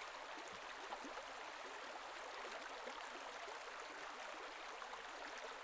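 Faint, steady rush of flowing canal water.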